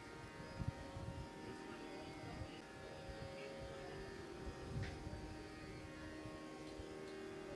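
Faint tanpura drone: a steady cluster of sustained tones. Two soft knocks come just under a second in and about five seconds in.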